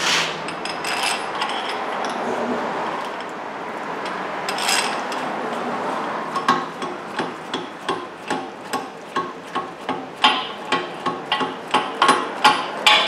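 Metal clinking and clicking as pieces of a hub bearing press tool are fitted and turned by hand on a steering knuckle. From about halfway, a regular metallic click comes roughly twice a second as the tool is worked around.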